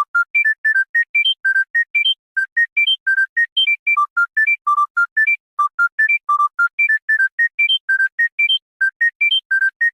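A smartphone ringtone playing: a quick electronic melody of short, separate notes, about seven a second, climbing in runs that repeat over and over.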